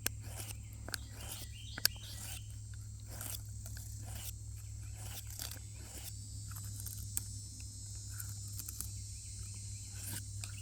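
Mora Eldris knife blade drawn in a series of short, irregular strokes across the fine side of a diamond sharpening file, honing the edge. A steady low hum runs underneath.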